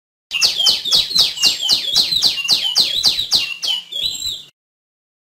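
Female tiểu my bird calling: a quick run of about fifteen short notes, each sliding down in pitch, about four a second. The run starts just after the beginning and cuts off sharply after about four seconds.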